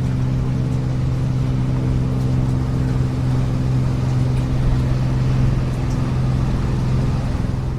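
Motorboat engine running steadily under way: a constant low drone with a noisy hiss over it.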